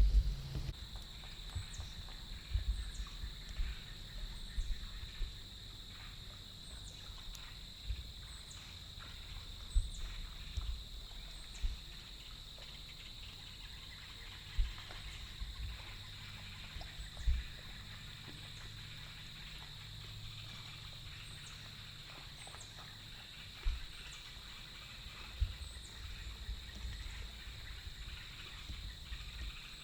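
Steady high-pitched insect drone, typical of crickets, in swamp woods, with faint short high chirps every second or two. Scattered low thumps on the microphone are the loudest sounds.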